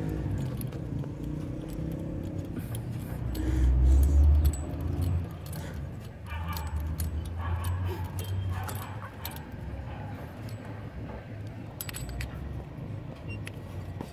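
Light metallic clinks and rattles of a steel tubular spark plug wrench being fitted over a motorcycle spark plug and worked with a bar through it, over a low rumble that swells about four seconds in.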